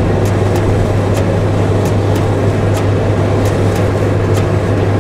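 Steady road and engine drone inside a van's cab at motorway speed, with a strong low hum. Scattered sharp ticks of raindrops striking the windscreen come at irregular intervals throughout.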